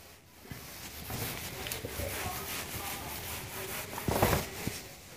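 A whiteboard being wiped clean with a gloved hand: rubbing, starting about a second in, with one louder swipe near the end.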